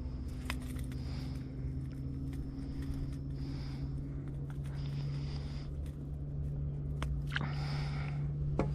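Steady low electric hum, typical of a 55-pound-thrust foot-controlled trolling motor running, with scattered light clicks and knocks from gear being handled in the boat.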